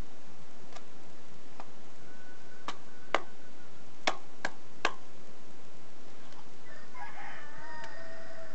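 A few sharp clicks and taps over a steady hiss, then, starting about a second and a half before the end, a drawn-out pitched animal call that rises at first and then holds one note.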